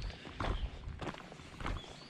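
Footsteps at a steady walking pace, about one step every half second or so.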